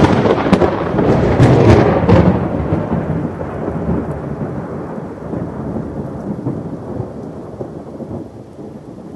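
Thunder: a loud crack with crackling in the first couple of seconds, then a long rolling rumble that slowly dies away.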